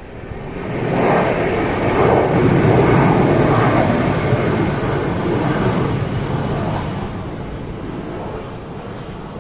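Jet airliner's engines running at high power in reverse thrust as it brakes on the runway after touchdown, heard from a distance. A rushing noise that swells about a second in, holds for several seconds, then slowly fades.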